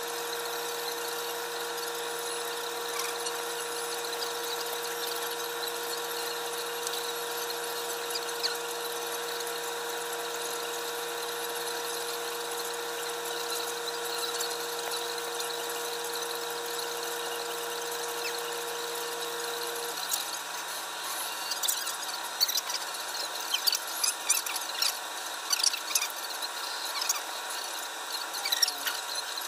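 A steady whine and hiss with several fixed tones, the lowest of which drops out about two-thirds of the way in. Then a run of irregular light clicks and taps as cardboard jigsaw puzzle pieces are handled and pressed together.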